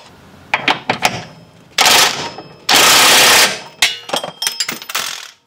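A wrench running down the mounting bolt of a new rear shock absorber: a few clicks, two loud quick bursts of rapid mechanical rattling, then light metallic clinks near the end.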